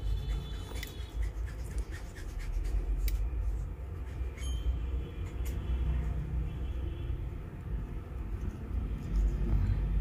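Light scratching and clicking of a tool scraping glue residue off a phone's circuit board, over a steady low rumble.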